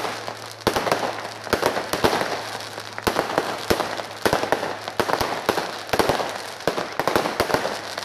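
Fireworks display going off: a rapid, irregular run of bangs and crackling reports over a steady hiss of burning sparks.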